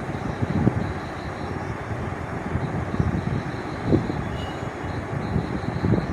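Masala cooking in a kadai: a steady low rushing noise, with a few knocks of a spatula against the pan about one, four and six seconds in.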